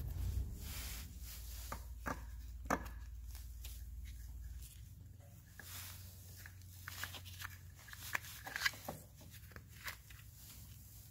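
Irregular clicks and knocks, like small parts or tools being handled, over a low rumble that stops about four and a half seconds in.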